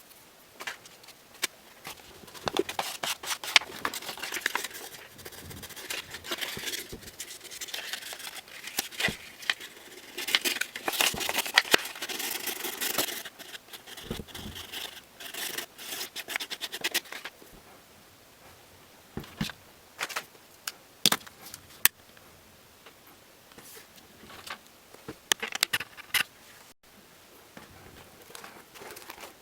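Scraping and rustling from hand work on a shoe, in irregular strokes with sharp clicks, busiest in the first half and thinning out to a few scattered clicks later.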